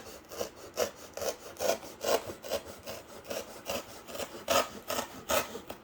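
Back-and-forth rasping strokes on cardboard, about two a second and uneven, as the cardboard is worked by hand, with a few louder strokes in the second half.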